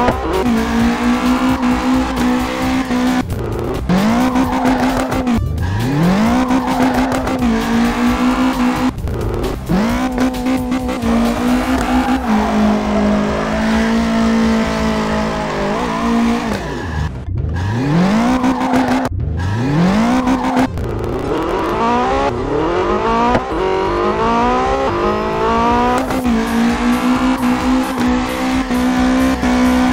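Race-car engine sound effect revving up and down over and over, its pitch dropping and climbing again several times, with tyre squeals mixed in.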